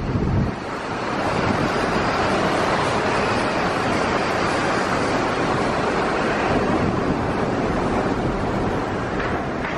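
Steady rush of road and wind noise from a moving car driving between close rock and stone walls, with a low rumble in the first half second.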